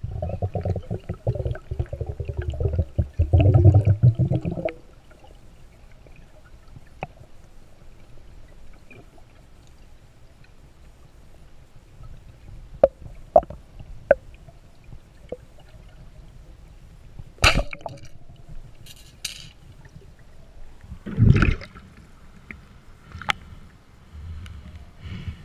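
Heard underwater: rushing, gurgling water noise for the first few seconds, then quiet with scattered small clicks. About seventeen seconds in comes one sharp crack, the modified Niletec 110 speargun firing, and a few seconds later a second loud burst of noise.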